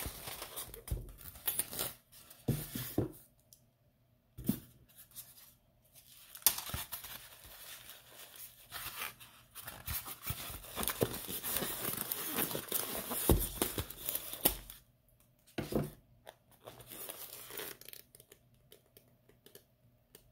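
Packing materials handled by hand: styrofoam, paper and plastic wrap rustling, scraping and crinkling in irregular bursts with short pauses and a few sharp clicks.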